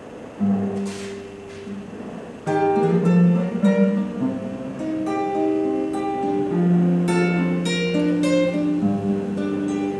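Classical guitar played alone, plucked notes and chords: a few notes ring out about half a second in, then a fuller, louder melody with chords from about two and a half seconds.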